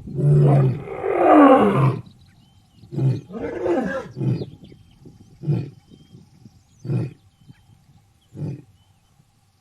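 Lion roaring: two long, loud roars, then shorter roars, trailing off into a series of short grunts about a second and a half apart that grow weaker, the typical end of a lion's roaring bout.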